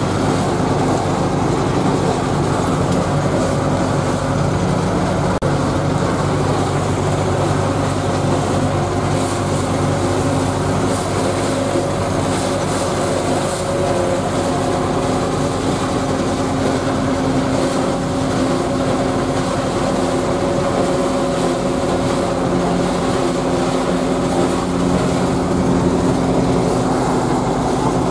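Zetor 8011 tractor's diesel engine running steadily under load, heard from inside the cab, together with an SKPU 220 forage harvester chopping maize and blowing it into a trailer.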